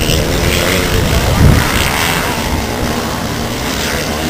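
Several motocross bike engines revving hard as the pack races through a corner, the pitch rising and falling, loudest about a second and a half in.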